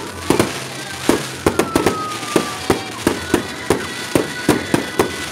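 Fireworks going off in quick succession, a rapid run of sharp bangs about four to five a second.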